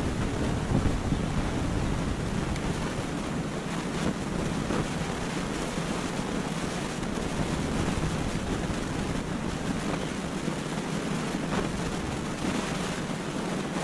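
Steady wind noise on the microphone, an even rushing with no distinct events.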